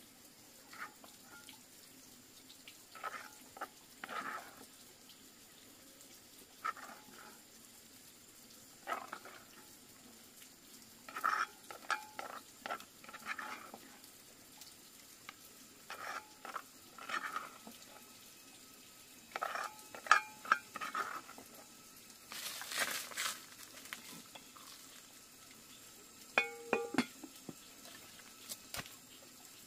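A kitchen utensil clinking and scraping against cookware in irregular short bursts, some with a brief ringing tone. A short noisy scrape comes about three-quarters through.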